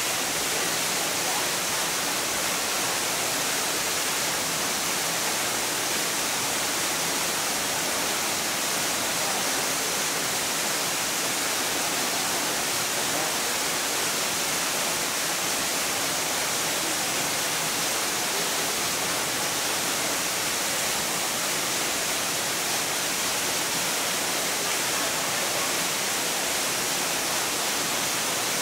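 Steady, even hiss of falling water, unbroken, with no animal calls or other events.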